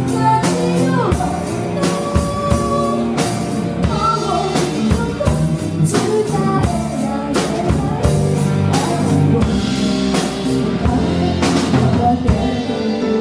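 Live rock band playing a sad song: a woman singing into a microphone over drums with cymbal crashes, electric guitar, bass guitar and keyboard.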